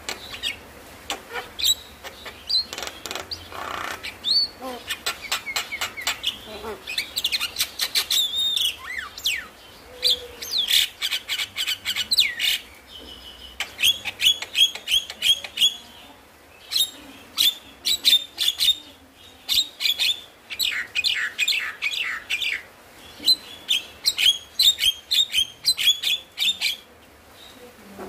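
Javan myna singing a chattering song: fast runs of sharp clicks, chirps and whistles in bursts, with short breaks between phrases.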